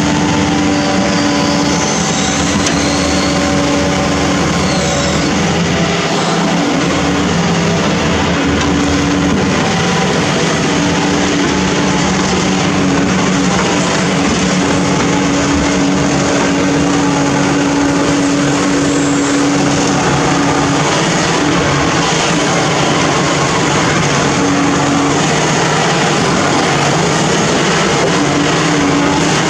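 Amphibious backhoe's engine and hydraulics running steadily as the boom and bucket work. A steady droning tone breaks off and returns a few times over a constant engine rumble.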